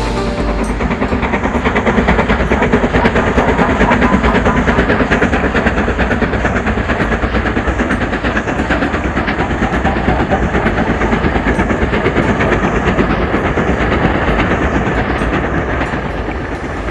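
Railway train running on jointed track: a steady rumble with regular clicks of the wheels passing over the rail joints.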